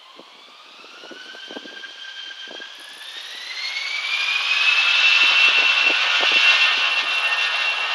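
Jet airliner's turbofan engines spooling up to takeoff thrust as the takeoff roll begins. A rising whine climbs for about five seconds, then holds at a steady high pitch, getting much louder as it goes.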